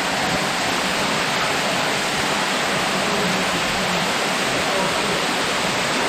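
Steady rush of a waterfall and stream running high with snowmelt.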